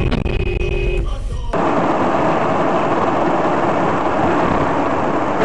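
Low vehicle rumble with a steady tone that stops about a second in. It changes abruptly to a steady, loud rush of road and wind noise, as heard from a dashcam in a vehicle driving along a highway.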